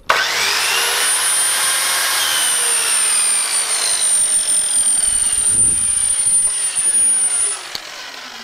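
A mitre saw's motor starts on the trigger, and a 1500 W wet and dry workshop vacuum set to auto-start switches itself on with it, running with a steady high whine. The saw spins down, while the vacuum runs on for several seconds under its auto-start delay, then cuts out and begins to wind down near the end.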